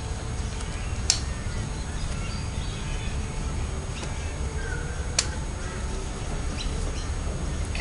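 A steady low rumble with faint bird calls over it, and two sharp clicks, one about a second in and one about five seconds in.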